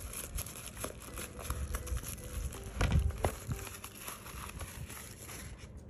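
Packaging crinkling and rustling as the shoes are handled, with many small clicks and one louder knock about three seconds in.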